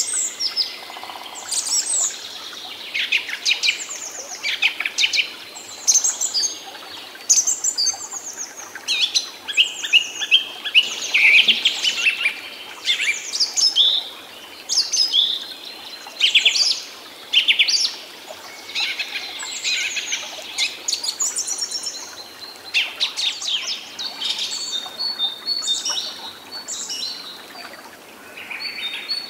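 Several songbirds singing and chirping at once, short high phrases overlapping one after another, with a thin, steady high note joining in near the end.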